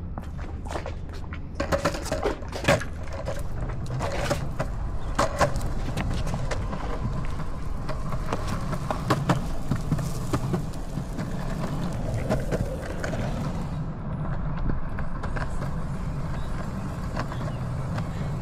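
Longboard wheels rolling on a concrete path: a steady low rumble with occasional clicks. In the first few seconds, a run of sharp knocks and clicks as the board is carried and set down and the ride begins.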